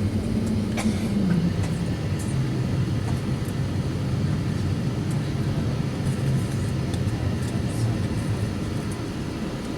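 Steady low cabin drone inside an Airbus A321 on the ground before departure, with a hum that drops in pitch about a second in, and a few faint clicks.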